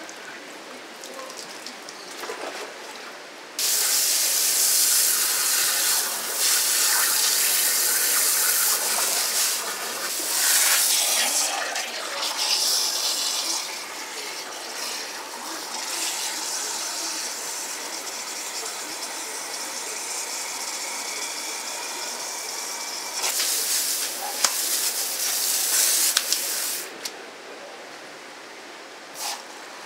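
Running water from a tap, gushing hard. It turns on suddenly about three and a half seconds in and runs steadily for over twenty seconds. It stops near the end after a stronger stretch with a few sharp knocks.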